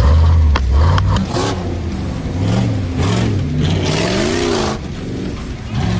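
Stripped-out Jeep Grand Cherokee race Jeep's engine revving hard on a dirt track, its pitch climbing and dropping again and again as the throttle is worked. There are two sharp knocks about a second in, and a loud hiss of tyres spraying dirt a little past the middle.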